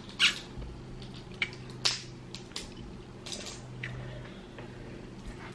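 Boiled seafood shells cracking and crackling as they are picked apart by hand: a string of short snaps, a few of them louder, over a low steady hum.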